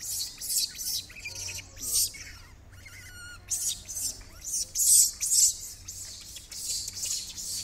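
Small birds chirping over and over in short, high-pitched calls, with a quick trill of evenly repeated notes about three seconds in and the loudest chirps around five seconds in.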